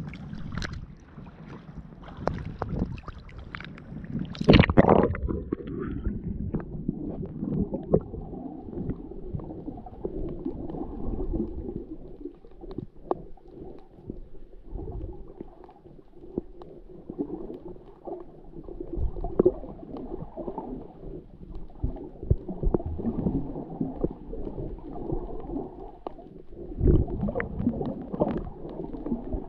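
Water sloshing and splashing against a camera at the sea surface, then a loud splash about four and a half seconds in as it goes under. After that it is muffled underwater sound: low rumbling and gurgling of moving water against the camera housing, swelling and fading irregularly.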